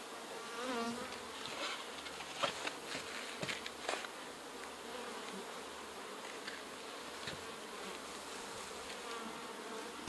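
Honey bees buzzing steadily around an opened Langstroth hive. A few light knocks of wooden hive boxes being handled come between about two and four seconds in.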